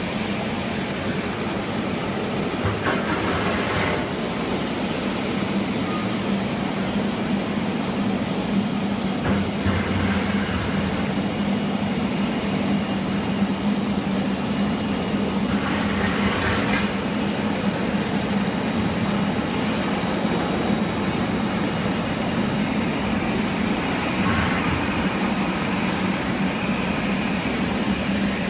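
Boeing 777-300ER's GE90 jet engines running at steady power: a loud, even rumble with a constant low hum, and a few brief hissing surges.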